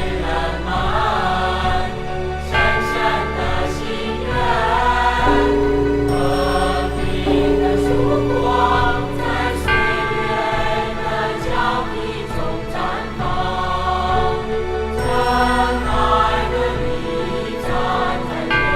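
Music with a choir singing over sustained low instrumental chords.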